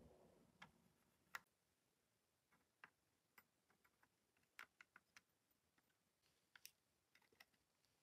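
Faint, irregular small clicks and taps from fingers handling the plastic chassis and mechanism of an opened cassette Walkman, with a soft rustle in the first second.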